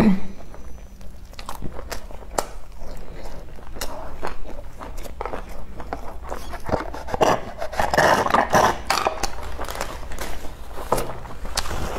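Close-miked eating sounds of a person chewing, with many short mouth clicks and smacks. Partway through comes a stretch of sipping through a straw from a drink carton, then chewing again.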